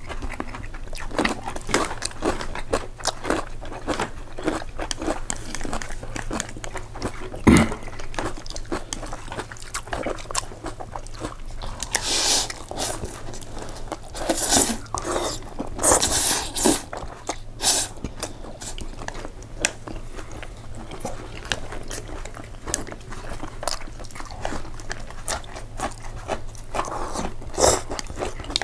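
Close-miked eating: a person chewing and crunching food with many small wet clicks, and several louder hissing bursts through the middle and one near the end.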